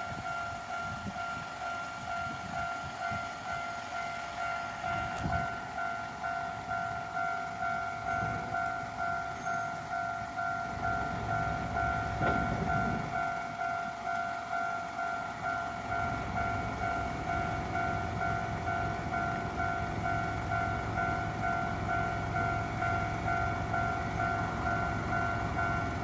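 Japanese railway level-crossing electronic warning bell ringing in a steady, rapid rhythm. About halfway through, a low rumble comes in underneath and stays.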